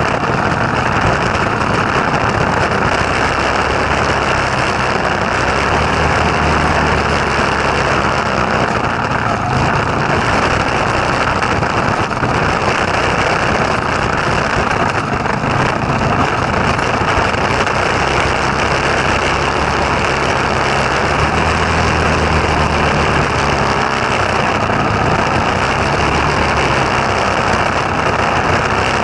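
Go-kart's small Tecumseh engine running steadily, its pitch shifting up and down a few times.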